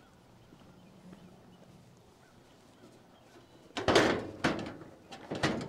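Hood latch of a 1951 Chevy 3100 pickup released by hand through the grille: a loud metal clunk and rattle about four seconds in, then a few sharper clicks near the end as the steel hood comes up.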